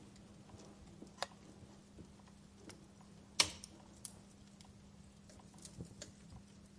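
Burning logs crackling: scattered small snaps and pops over a faint hiss, with one louder pop about three and a half seconds in.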